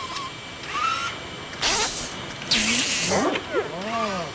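Cartoon sound effects: two short hissing whooshes, then a robot's warbling, gliding electronic chirps near the end.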